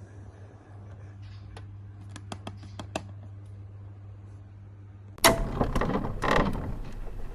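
Toy packaging being handled: several light clicks and taps, then about five seconds in a loud rasping rustle of the box and its packaging lasting about two seconds, followed by a couple more clicks. A low steady hum runs underneath.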